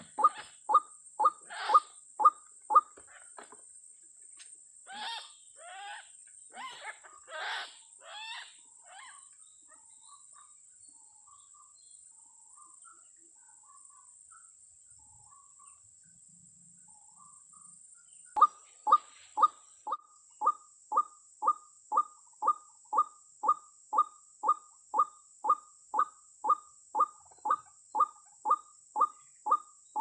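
White-breasted waterhen (ruak-ruak) calls: a short note repeated evenly about twice a second. Louder, rougher calls come around 5 to 9 seconds in, then a quiet lull. The steady repeated notes return about 18 seconds in.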